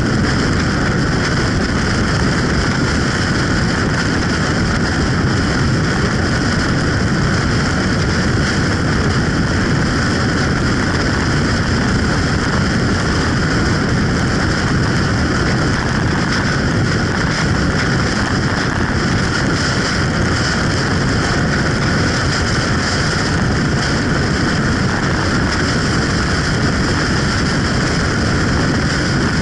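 Steady wind rush and road noise of a motorcycle travelling at road speed, heard from a camera mounted on the moving bike, with the engine running underneath at an even pace.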